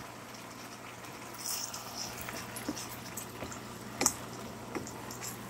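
Coconut milk and vegetables simmering faintly in a pan, with scattered small crackles over a low steady hum. A sharp knock sounds once about four seconds in, with a smaller one shortly after.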